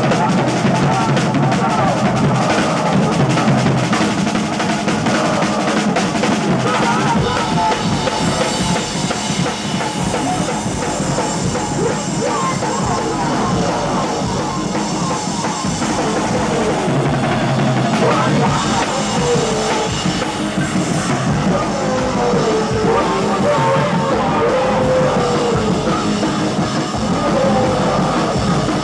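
Live band music played loud on a drum kit with other instruments. Cymbals wash in about seven seconds in, and wavering pitched lines run over the drums in the second half.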